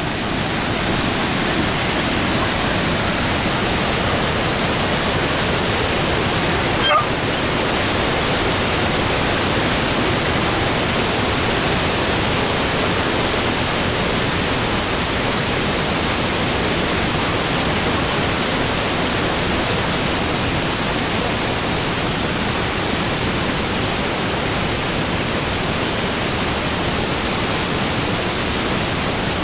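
Waterfall: a woodland brook's cascade pouring over boulders and logs into a rocky gorge, a loud, steady rush of water.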